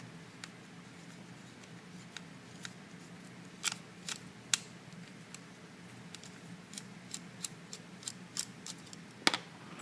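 Scattered small metallic clicks and ticks from tools working on an aluminium padlock while it is taken apart, loosening a part held with Loctite, with the loudest click near the end.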